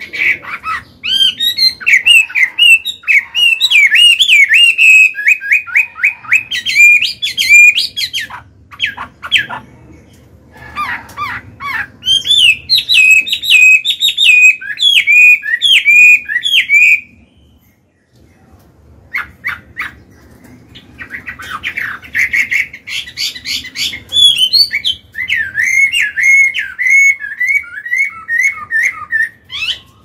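Chinese hwamei singing loudly: three long bouts of rapid, repeated whistled notes that bend up and down in pitch, separated by short pauses, the longest pause coming about two-thirds of the way in.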